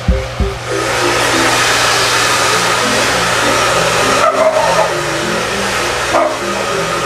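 Handheld hair dryer blowing steadily with a loud rushing whoosh, starting about a second in after two low bumps, over a steady low motor hum.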